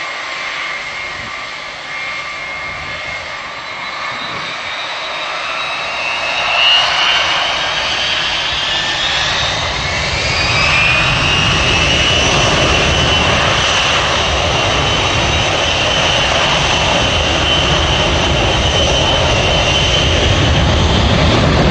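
Boeing 707-331B(KC) tanker's four Pratt & Whitney JT3D turbofans spooling up on the runway for takeoff. A high whine climbs in pitch about nine to eleven seconds in and then holds, while a deep rumble builds up beneath it and the sound grows louder.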